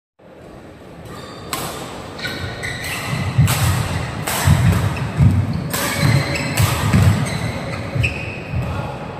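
A badminton rally: rackets striking the shuttlecock in a string of sharp hits about a second apart, over thudding footsteps and shoe squeaks on the court floor.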